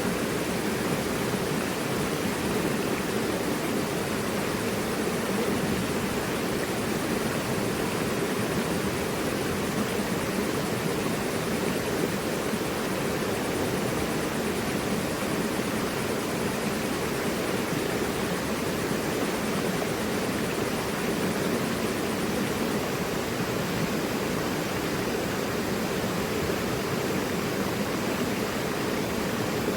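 Mountain river rushing over rocks: a steady, even roar of flowing water with no break.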